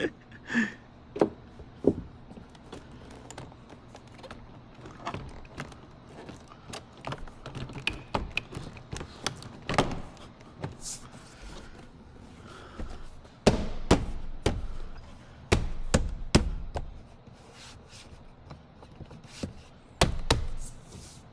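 Hyundai Santa Fe rear door latch and handle being worked: a string of light clicks and knocks, with heavier clunks a little past the middle and again near the end as the latch releases and catches.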